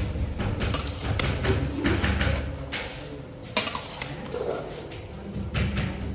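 Long metal spatula scraping and knocking against the side of a large aluminium cooking pot as onions and mutton are stirred. It gives repeated scrapes and clinks, with a sharp clink about three and a half seconds in, over a low steady rumble.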